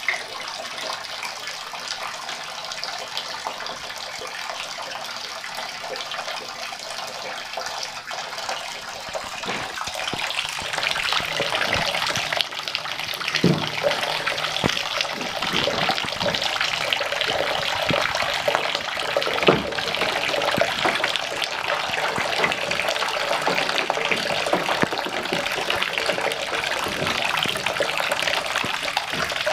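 Water running into a bathtub and splashing on the tub floor, getting louder about ten seconds in, with a few short splashes and knocks as a young raccoon paddles in it.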